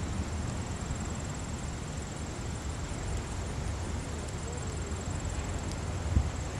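Steady outdoor ambient noise, mostly a low rumble, with a thin steady high tone throughout and a soft low thump about six seconds in.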